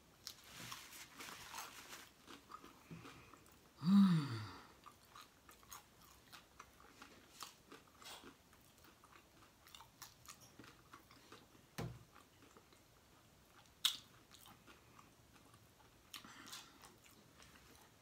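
Close-up mouth sounds of a person chewing the last bits of taco, with many small wet clicks and smacks. About four seconds in comes the loudest sound, a short low burp that falls in pitch.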